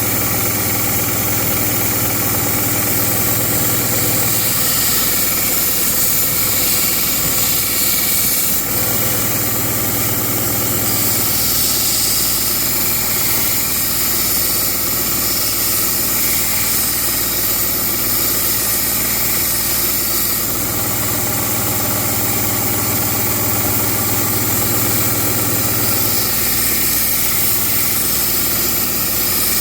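Belt grinder running steadily while a knife blade is ground against the moving abrasive belt to take chips out of the edge. A low hum in the noise drops out and returns a few times.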